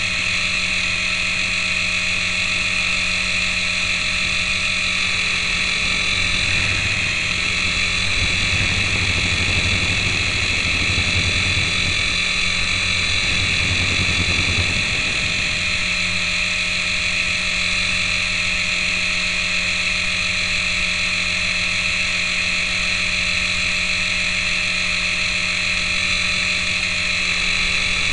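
Syma S107G micro coaxial RC helicopter's small electric motors and rotors whining steadily, heard up close from a camera taped to its underside. A deeper rumble joins for several seconds in the middle.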